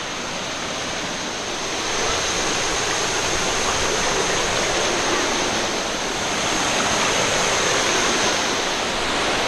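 Small waterfall splashing over rocks into a shallow, rocky stream: a steady rush of falling water that grows louder about two seconds in.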